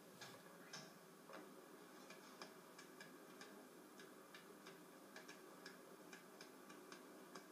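Near silence with faint, irregular ticks, about two or three a second.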